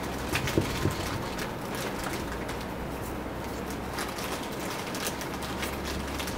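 Graffiti-removal wipe rubbing over a glossy fibreglass seat, a run of short, irregular scuffing strokes with two light knocks under a second in, over a low steady background rumble.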